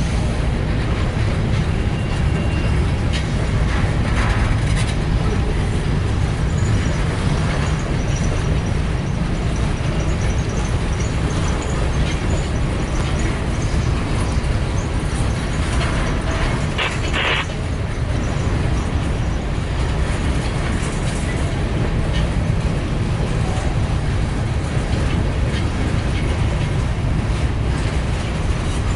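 Train of empty grain hopper cars rolling by with a steady low rumble.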